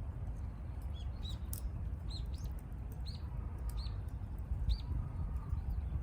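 A bird chirping in short, arched calls, about seven over a few seconds, over a steady low rumble and small crackles from a wood fire burning in a small stainless wood stove.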